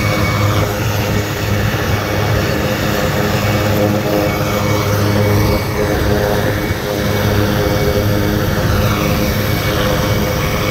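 Two RAF Puma helicopters running on the ground with rotors turning: a steady, loud turbine-and-rotor hum with a thin high whine over it.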